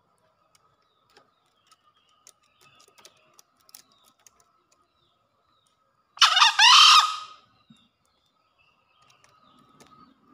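Male green junglefowl crowing once, about six seconds in: a single short crow about a second long, made of a few quick rising-and-falling strokes.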